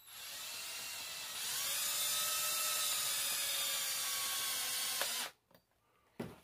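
Cordless drill with a Phillips bit spinning a self-drilling screw into 1/8-inch aluminum flat bar. The motor whine rises in pitch about a second and a half in as it speeds up, runs steady, and stops sharply after about five seconds.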